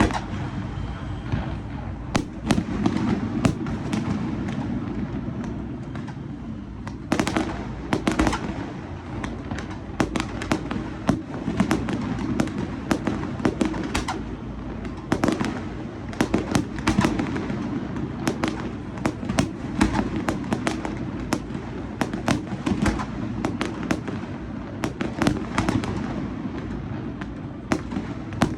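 Aerial fireworks going off in quick succession: many sharp bangs and crackling pops, several a second, with a thicker flurry about seven seconds in.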